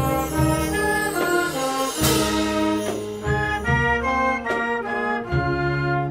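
Brass band playing a melody over a sustained low bass line, with a cymbal crash about two seconds in.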